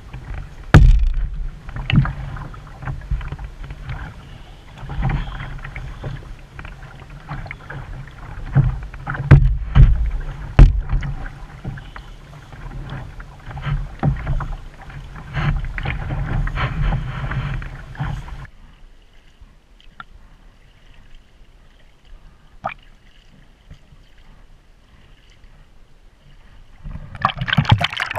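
Choppy lake water slapping and knocking against a canoe's hull at the waterline, with a low rumble and many sharp knocks. About two-thirds of the way through it drops much quieter, then near the end the microphone goes under and water gurgles loudly.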